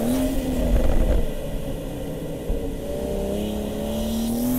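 Turbocharged BMW M240i straight-six with an upgraded Pure 800 turbocharger, heard from inside the cabin under hard driving. The engine note jumps on the throttle at the start and then falls away about a second in. From about three seconds in it climbs steadily as the car accelerates again.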